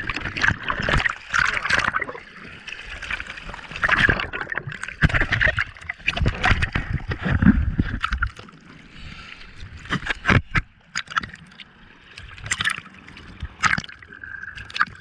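Sea water splashing and sloshing over a surfboard deck and the GoPro mounted on it, in irregular slaps and gurgles.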